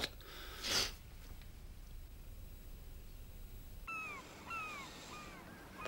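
A brief breathy sound near the start, then, after a cut to the waterside, a series of short, falling mewing calls from gulls, four or five in quick succession.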